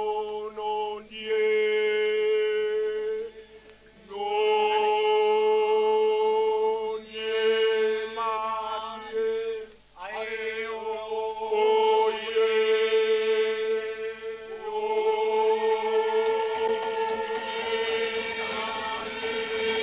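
A group of voices chanting traditional Papua New Guinean song, holding long notes on one pitch. Each phrase starts with an upward slide, with short breaks between phrases about a second, four seconds and ten seconds in.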